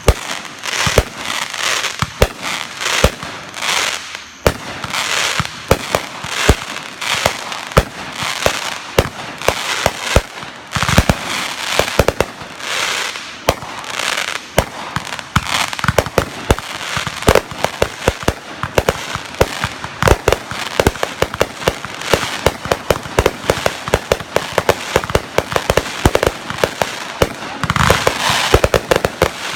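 Fireworks going off: a dense, unbroken run of sharp bangs and crackling, several reports a second.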